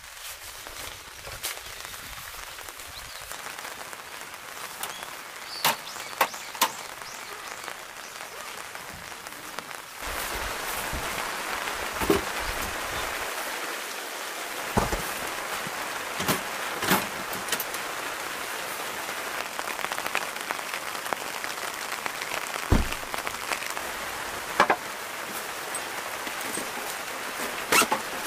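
Steady rain falling, getting louder about a third of the way in, with a scattered series of sharp clicks and knocks as camp gear is handled.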